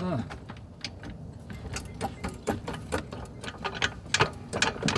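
Transmission jack being worked by hand: a run of irregular metallic clicks and knocks, a few a second, as the jack's handle is turned. The jack is not lifting easily.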